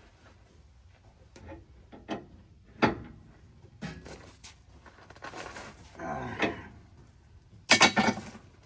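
Tools and metal parts being handled during suspension work: a string of short clanks and knocks, a rattling scrape about five seconds in, and a loud burst of clattering near the end.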